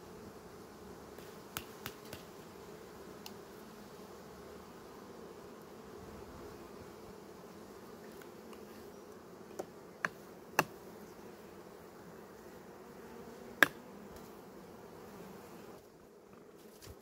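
Honeybee colony humming in an open hive, a steady drone, with a few sharp clicks scattered through it, the loudest about three-quarters of the way in. The hum drops away near the end.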